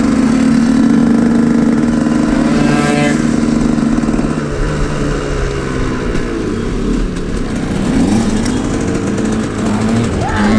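Two-stroke motorbike engine running while riding, holding a steady pitch for the first few seconds, then rising and falling as the throttle changes.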